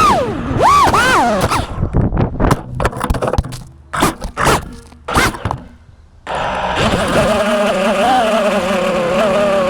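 FPV racing quadcopter's brushless motors whining, the pitch swooping up and down with the throttle, then a run of sharp knocks and scrapes with brief dropouts in between. From about six seconds in, the motor whine comes back, steady with a slight wobble.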